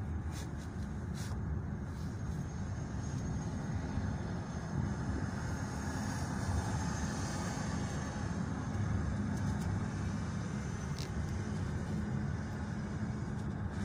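Steady road and engine noise of a moving vehicle, heard from inside the cabin, with a few faint clicks.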